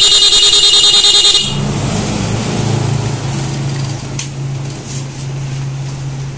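A motorcycle's electric disc horn driven by a two-wire horn strobe module, sounding as a loud, rapid stutter of beeps, several a second, for about a second and a half. It then stops, leaving a steady low drone.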